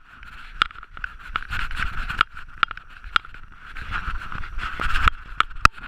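Mountain bike riding down a dirt forest trail: a steady rolling whirr with a low rumble, and many sharp clicks and knocks as the bike rattles over bumps.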